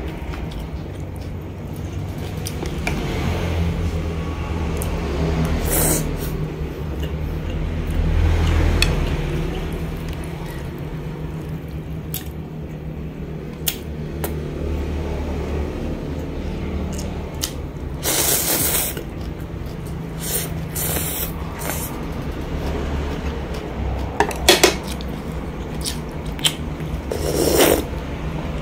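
Close-miked eating of a bowl of bún riêu rice-noodle soup: slurping noodles and broth, chewing, and chopsticks and a spoon clicking against the ceramic bowl. A few louder slurps come in the second half, over a steady low hum.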